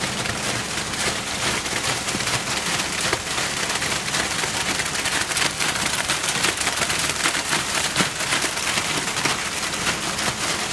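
Wet concrete pouring from a truck chute into metal foundation wall forms: a steady, dense gritty crackling.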